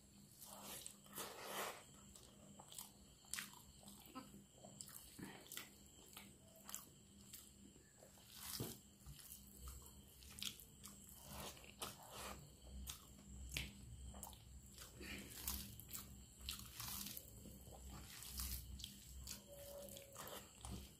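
Close-up eating sounds: a person chewing and smacking on hand-fed mouthfuls of rice mixed with dal and fried vegetables, many short wet clicks, with fingers squishing the food as they mix it. A faint steady hum runs underneath.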